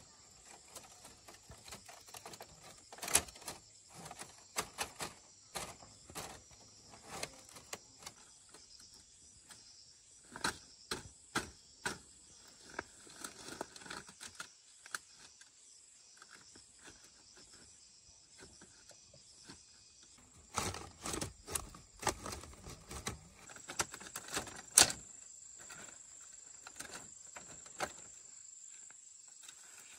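Irregular knocks and taps from hand work on bamboo, coming in clusters with a quiet spell in the middle. A steady high-pitched insect drone runs underneath.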